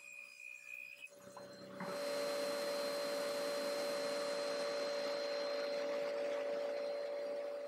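Laguna table saw and its hose-connected dust extraction starting up about two seconds in and then running steadily, a loud machine drone with a steady hum in it.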